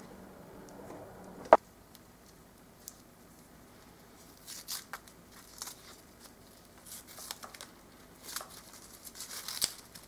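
Old, brittle wrapping being torn and peeled off an electrical cord by hand: scattered short crackling, tearing rips, coming thicker towards the end. Near the start there is a single sharp knock, the loudest sound.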